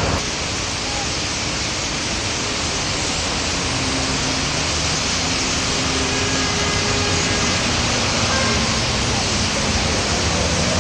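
Massed chatter of a European starling roost: thousands of birds together making a steady, dense hiss, with a low rumble beneath.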